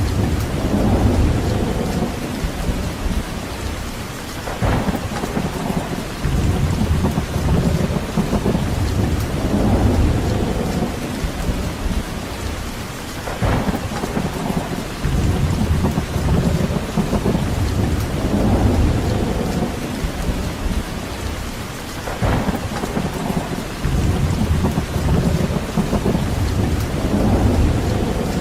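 Steady rain falling, with deep low swells rising and falling every few seconds.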